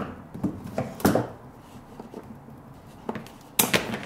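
Handling knocks and rustle of grey sheathed electrical cable, then near the end a cable cutter snipping through it with a quick crunch of sharp clicks.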